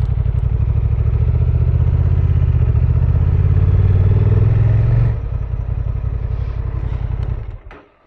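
Honda Transalp 750 motorcycle's parallel-twin engine running under way, its note building slightly, then easing off about five seconds in and stopping shortly before the end.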